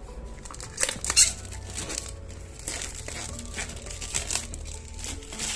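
Clear plastic wrapping crinkling as it is handled and pulled off a smartphone box, in irregular crackles with the sharpest about a second in.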